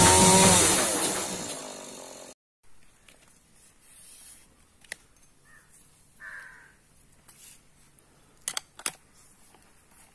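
Intro music fading out over the first two seconds, then quiet with a few sharp clicks of a rotary hammer drill and its auger bit being handled, two of them close together near the end. The drill is not running.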